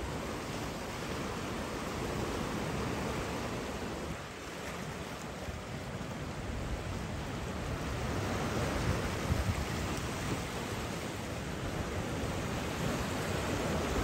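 Small waves breaking and washing up onto a sandy beach, an even rushing noise that swells a little past the middle.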